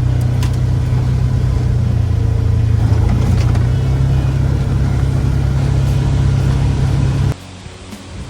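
Vehicle engine and road noise, a loud steady low drone, as the vehicle climbs a rugged mountain road. It cuts off abruptly about seven seconds in, leaving a much quieter background.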